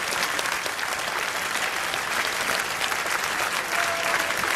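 Large crowd applauding steadily, a dense wash of clapping hands.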